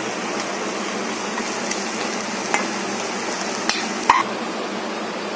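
A steel spatula stirring sweet corn frying in a kadai over a steady sizzle, with three short clinks of metal on the pan in the second half.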